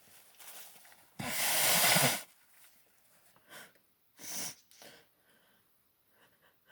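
A woman's loud blast of air through the nose lasting about a second, after a faint intake of breath, during an allergy sneezing fit. A few short sniffs follow.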